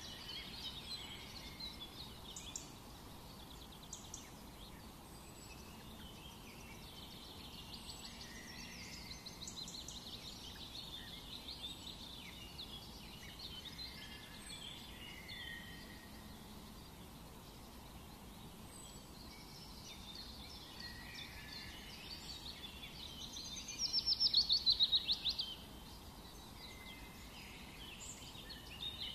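Birds chirping and singing in a steady outdoor background, with a louder fast trill of repeated notes lasting about two seconds, a few seconds before the end.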